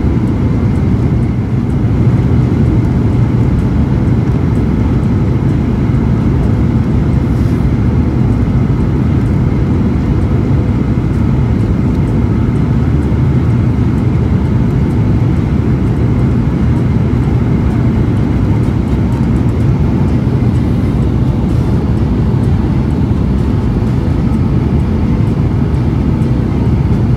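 Cabin noise of a jet airliner on low final approach, heard from a window seat over the wing: a steady low rush of engines and airflow with faint steady whining tones.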